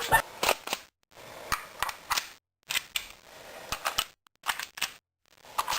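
A string of sharp clicks and knocks, several a second, broken by a few short stretches of dead silence.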